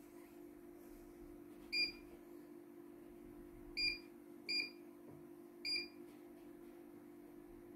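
Control-panel key beeps of a CNY computerized embroidery machine as its buttons are pressed to load and select design files: four short, high-pitched beeps over a steady low hum.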